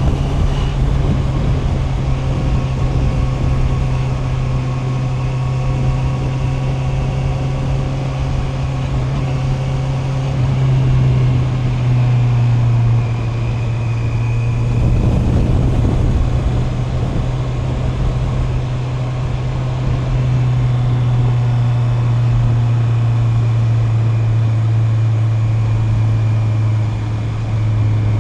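Honda CB650R's inline-four engine running at fairly steady revs while riding, its pitch stepping down slightly a few times. A brief rush of noise comes about halfway through.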